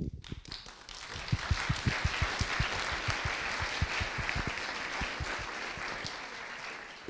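Audience and panel applauding: a few scattered claps swell into steady applause about a second in, then die away near the end.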